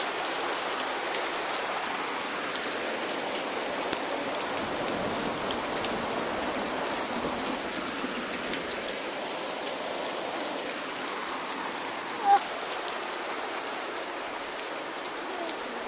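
Heavy rain falling on wet pavement and puddles: a steady hiss with scattered individual drop ticks. A short, brief pitched sound stands out about three-quarters of the way through.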